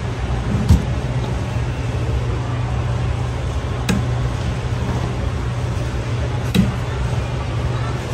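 Three light knocks as the drawer and door of a wood-grain laminate dining cabinet are handled, over a steady low hum of store ambience.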